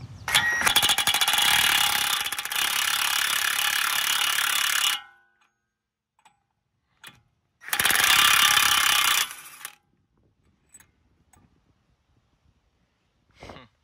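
Impact wrench with a 36 mm socket hammering on a front-hub axle nut to break it loose: one run of about five seconds, a pause, then a second shorter burst, followed by a few faint clicks.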